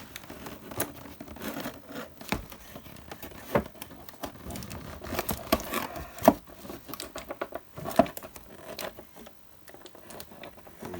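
Cardboard and plastic packaging of a boxed die-cast model car being handled: crinkling and scraping as the model is worked out of its box, with several light knocks scattered through.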